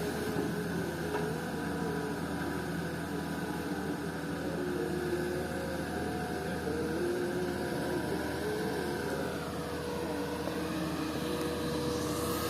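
Komatsu PC200 excavator's diesel engine running steadily, with whining tones that shift up and down in pitch as the machine works; a higher whine dips and comes back up about nine to ten seconds in.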